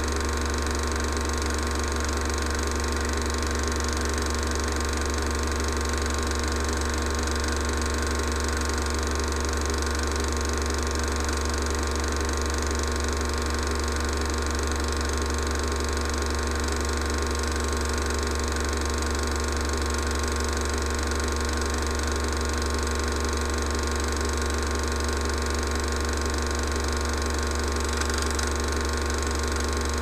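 Steady mechanical whir and hum of a 16mm cine projector running, with no change in pitch or level.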